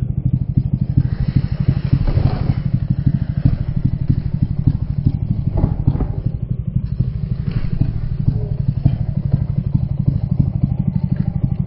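A small engine idling steadily with a rapid even pulse.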